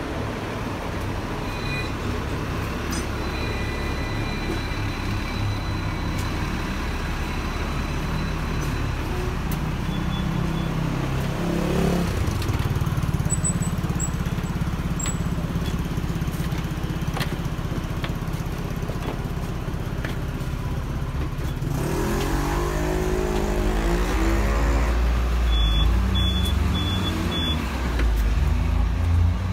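City street traffic: a steady rumble of vehicle engines, with one vehicle pulling away and rising in pitch about three-quarters of the way through.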